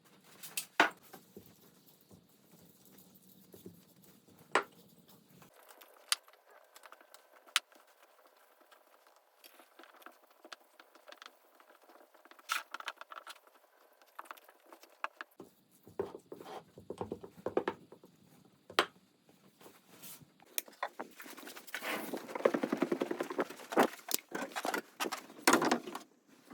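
Kitchen preparation noises: scattered clicks and knocks of utensils and containers, then, from about two-thirds of the way through, a denser and louder run of handling sounds.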